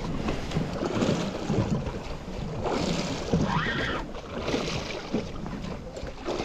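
Wind on the microphone and water slapping against a small boat's hull at sea.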